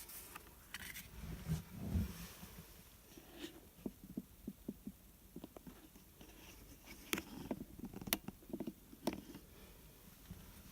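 Close-up handling of a box and its packaging: light rustling with scattered soft taps and clicks, a couple of dull thumps about two seconds in and a quick run of small taps a little before the middle.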